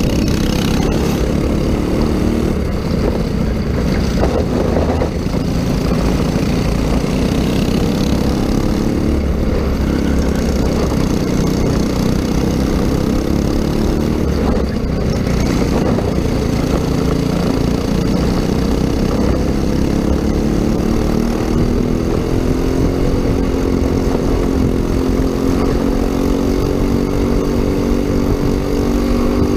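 Racing kart engine heard onboard at race speed, its pitch rising and falling with the throttle through the corners, climbing steadily through the last third and dropping sharply at the very end.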